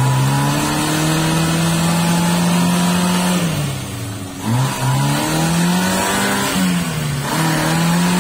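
Suzuki Jimny 4x4's engine revving hard under load in deep mud. The revs are held high, drop away and climb back about halfway through, then dip once more near the end.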